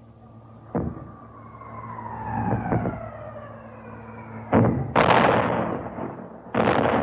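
Air-raid sound effect: a falling bomb's whistle gliding steadily down in pitch, followed by explosions. There is one short blast about four and a half seconds in, a bigger one half a second later, and another near the end, each dying away.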